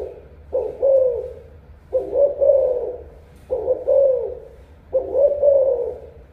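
Spotted dove cooing: four phrases about a second and a half apart, each a short coo that swells and then falls away.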